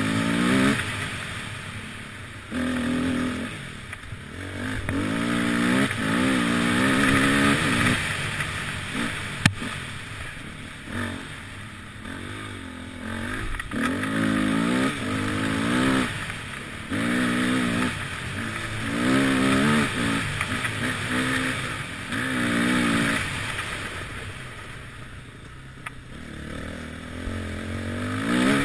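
Enduro motorcycle engine revving in repeated bursts as the throttle opens and closes, each burst rising in pitch and falling away between, over a steady hiss. A single sharp knock about nine and a half seconds in.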